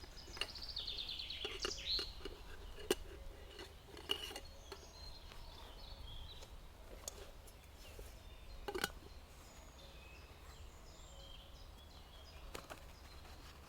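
Woodland birdsong: a songbird sings a quick descending trill in the first second or so, with a few fainter high calls later. Several sharp clicks and snaps stand out, the loudest about three seconds in and near nine seconds, over a steady low rumble.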